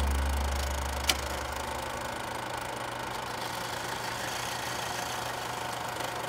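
Old film projector sound effect running steadily with hiss and crackle, with one sharp pop about a second in. The low end of the closing music fades out over the first two seconds.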